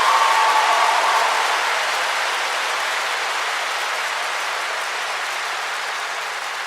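Large audience applauding, a dense wash of clapping that is loudest at the start and slowly eases off.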